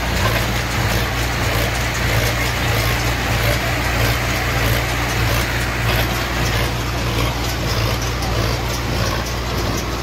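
Agrizone AZ 984 square baler working straw, driven by a tractor's PTO: the tractor engine runs steadily under load with the baler's mechanism running over it in a continuous mechanical din.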